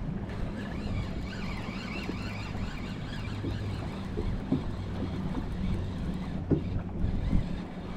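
Wind buffeting the microphone in gusts over a steady low hum, with a few low thumps near the end.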